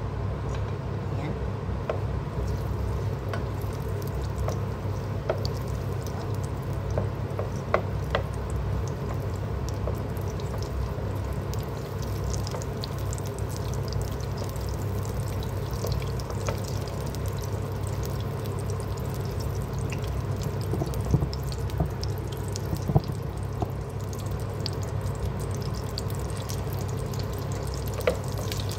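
Butter melting and sizzling gently in hot oil in a nonstick pot while a wooden spatula stirs it, with scattered small scrapes and clicks. A steady low hum runs underneath.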